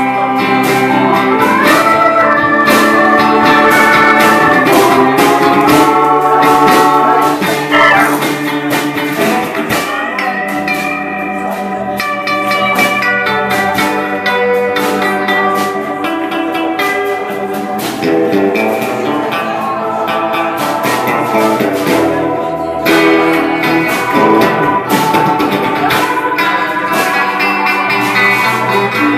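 A small band playing live: a hollow-body electric guitar, an upright double bass and a keyboard. There are quick runs of notes for the first several seconds, then somewhat softer playing.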